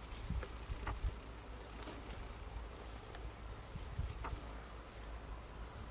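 Insects trilling in short, high, rapidly pulsed bursts that repeat about once a second, over soft low thumps and rustles.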